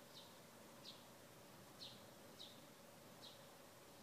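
Near silence with a bird chirping faintly in the background: five short, high chirps, each falling in pitch, spaced unevenly. A faint steady hum runs underneath.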